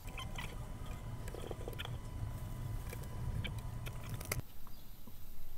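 Light crackling and small clicks of sticky tape being handled and pressed onto a small hinge, over a steady low hum; the sounds cut off sharply about four and a half seconds in.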